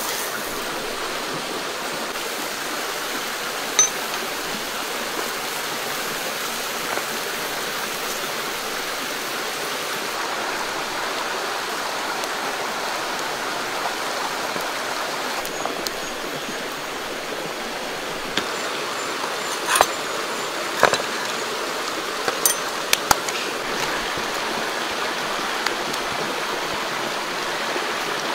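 Steady rush of a rocky creek flowing, with a few short sharp clicks, most of them about two-thirds of the way through.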